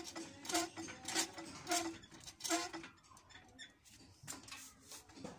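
A high-speed sewing machine being worked in short spurts: a series of light knocks, roughly two a second for the first half and then sparser, each with a brief hollow tone.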